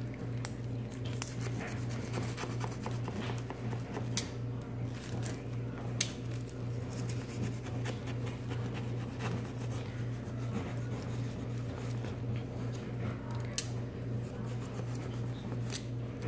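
A box cutter blade cutting through hardened paper clay in repeated short scratchy strokes, with a few sharper clicks, over a steady low hum.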